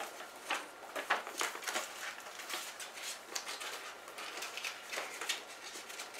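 A folded paper poster rustling and crinkling as it is handled and refolded, in short irregular crackles.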